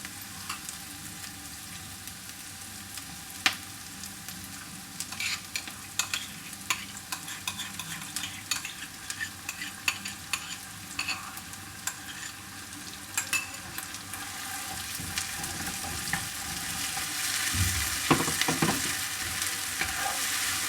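Soy-and-ketchup sauce sizzling in a hot pan over onions and dried chillies, with a spoon stirring and clicking against the pan throughout. The sizzle grows louder over the last several seconds as the sauce comes to a boil.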